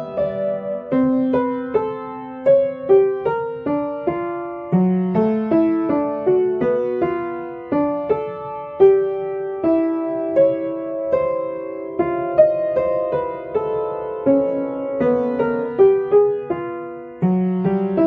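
Background solo piano music, single notes and chords struck one after another and dying away.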